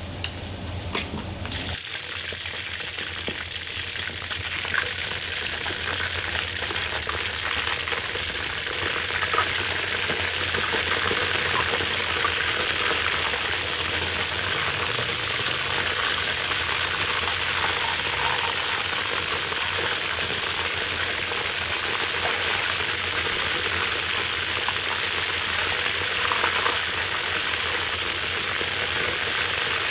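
Chicken wing pieces deep-frying in hot oil, a steady sizzle that grows a little louder over the first several seconds and then holds even.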